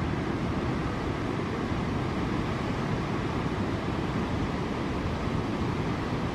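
Breaking ocean surf: a steady, even wash of noise with no breaks or distinct crashes.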